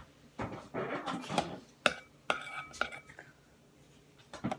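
A spoon clinking and scraping against a container while paint is spooned into slime: a few sharp, ringing clinks about two to three seconds in.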